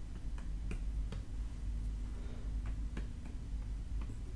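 A stylus tapping and clicking on a tablet screen as words are handwritten: scattered sharp ticks at an irregular pace over a low steady hum.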